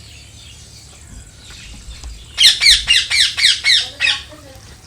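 A bird calling a fast run of about seven loud, sharp notes, each sweeping downward in pitch, at about four a second; the run starts about halfway in and lasts under two seconds.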